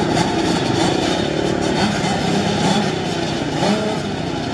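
Two-stroke motocross bike engines idling and revving at the starting gate, several engines overlapping, their pitches rising and falling as throttles are blipped.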